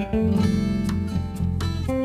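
Background music of strummed acoustic guitar, with sustained notes changing chords about every half second.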